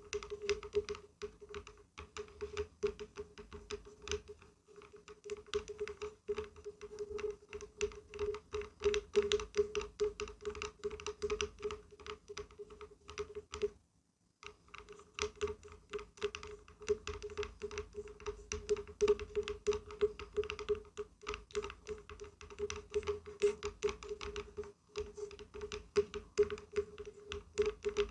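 Rapid, dense tapping on wood, many light taps a second with a steady wooden ring underneath; it stops for a moment about halfway, then resumes.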